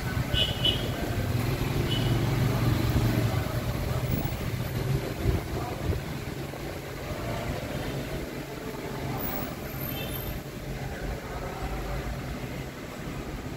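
A motor vehicle's engine running steadily, loudest over the first few seconds and then dying down, with a few short high chirps near the start.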